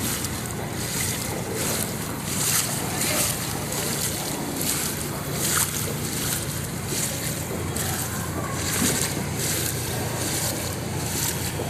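Footsteps wading through floodwater, a splash with each stride about one and a half times a second, over a steady wash of water noise.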